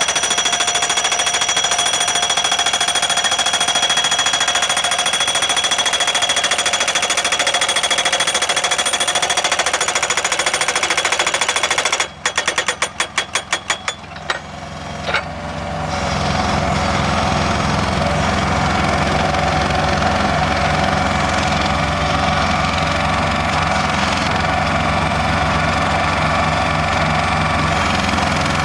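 Solar pile driver's hammer pounding a post with rapid, even blows for about twelve seconds, then breaking into a few separate strokes and stopping. After that the machine's engine runs steadily.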